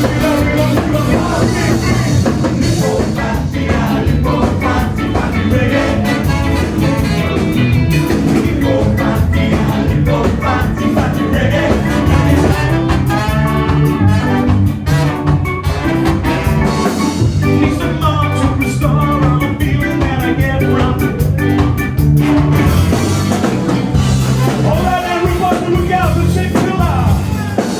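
A ska band playing live with a singer, drums and instruments, loud and continuous.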